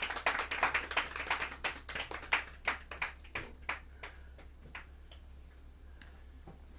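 Small club audience applauding, the clapping thinning to a few scattered claps and dying away around five seconds in.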